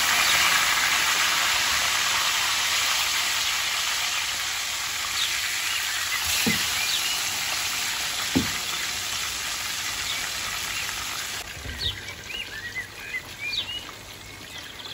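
Two whole sea bream shallow-frying in hot oil in a frying pan: a steady sizzle, with two knocks of the spatula and utensil against the pan as the fish are turned. About three-quarters of the way through, a glass lid goes on the pan and the sizzle drops to a muffled crackle with scattered pops.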